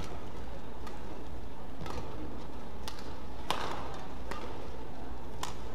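Badminton rally: a shuttlecock struck back and forth by rackets, a string of sharp hits roughly a second apart, the loudest about three and a half seconds in, over a steady low arena hum.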